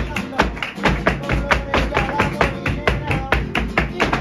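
Live flamenco: a guitar playing under dense, fast percussive strikes from the dancers' footwork and handclaps, several hits a second.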